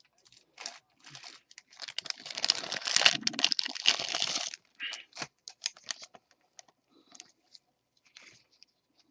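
Plastic packaging crinkling as it is handled, loudest for a couple of seconds about two seconds in, among scattered light clicks and taps of cards and packaging being handled.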